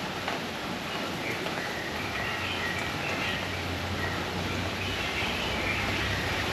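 Steady outdoor noise with faint bird chirps over it, and a low hum that comes in about two seconds in.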